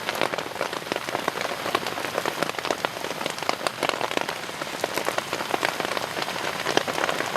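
Steady rain falling on a tarp overhead, a constant hiss dense with many small drop hits.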